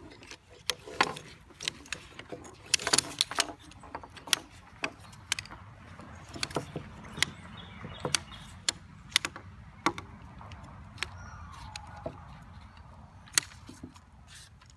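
The folding pole frame of a compact backpack camping chair being unfolded and its sections fitted together. It gives many sharp, irregular clicks and clinks, coming thickest in the first few seconds.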